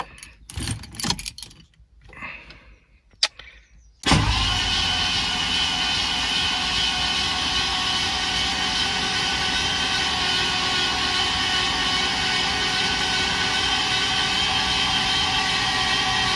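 Starter motor cranking the Mercedes 500SL's 5.0-litre M117 V8, its spark plugs out so the engine is only turned over to build oil pressure. It kicks in abruptly about four seconds in, after a few light clicks, and then spins steadily and evenly without firing.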